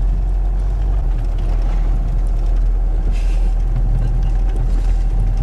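A car running, heard from inside the cabin as a steady low rumble.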